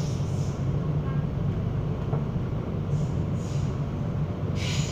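Interior running noise of an MTR K-stock electric train: a steady low rumble and hum from the wheels on the rails and the traction equipment, with short hissing sounds around three seconds in and again near the end.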